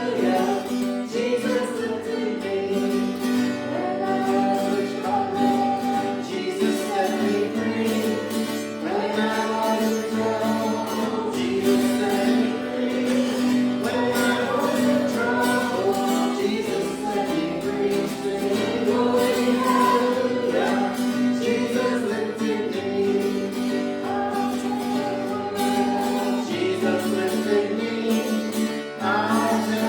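Group of voices singing a gospel hymn together with instrumental accompaniment, steady throughout.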